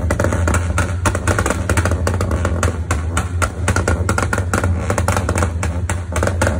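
Rapid, irregular crackling bangs from a tuned car's exhaust, typical of pops and bangs or anti-lag/two-step on the rev limiter, over a steady low engine rumble.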